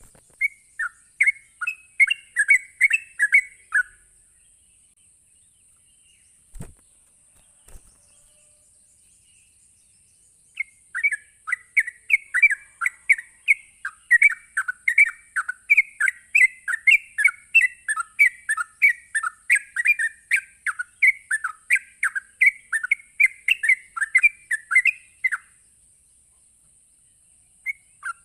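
Yellow-vented bulbul (trucukan) singing 'ropel': rapid, bubbling chattering phrases run together without pause. There is a short run at first, then after a gap a long unbroken run of about fifteen seconds. A faint steady high hiss sits behind it, and two soft thumps fall in the gap.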